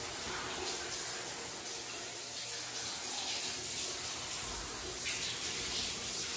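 Shower running behind a curtain: a steady hiss of spraying water in a tiled bathroom.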